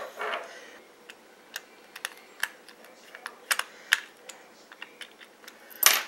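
Scattered light clicks and taps of a plastic TV remote and a small precision screwdriver being handled as the remote's case screw is driven back in, with a sharper click near the end.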